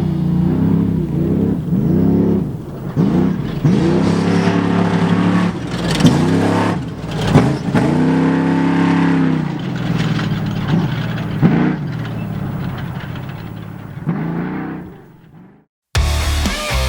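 Off-road race vehicle engines revving hard, the engine note rising and falling again and again, with some falling like vehicles going past. The engine sound fades out near the end.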